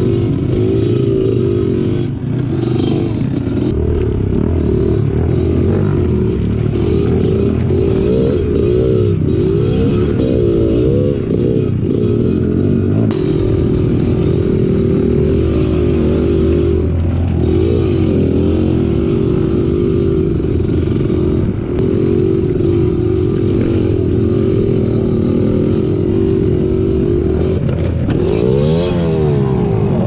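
Trail motorcycle engine running under way, its revs rising and falling again and again, with scattered knocks and rattles mixed in.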